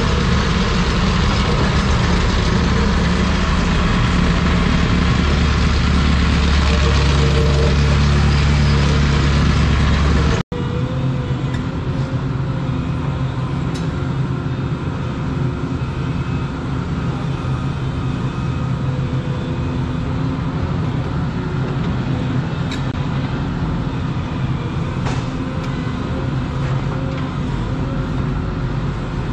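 Volvo 235EL excavator's diesel engine running. It is loud and heavy at first, then after a brief break in the sound about ten seconds in it runs quieter and steadier.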